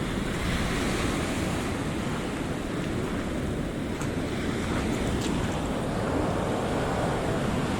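Pacific Ocean surf breaking and washing up the beach in a steady rush, with wind buffeting the microphone.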